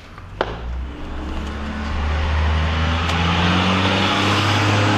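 A motor vehicle's engine running steadily, a low hum that grows louder over the first two seconds, with a sharp click about half a second in.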